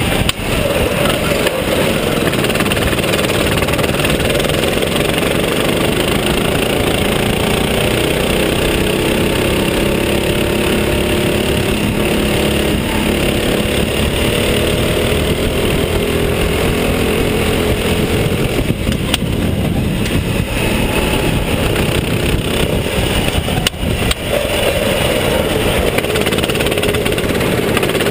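Go-kart engine heard on board at racing speed, its pitch rising and falling as the driver accelerates out of corners and lifts off into them. The level dips briefly twice, near the two-thirds mark and again a few seconds later.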